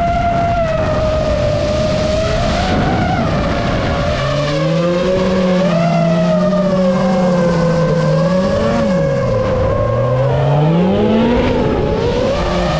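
Drift cars' engines revving up and down with tyres skidding, under the steady high whine of an FPV drone's motors. A lower engine note comes in about four seconds in and rises and falls twice.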